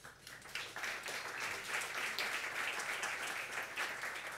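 An audience applauding: many hands clapping together, building up over about the first second and then holding steady.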